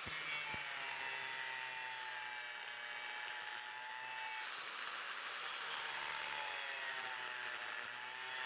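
Faint engine hum of a motor vehicle, its pitch wavering slightly, heard in two stretches.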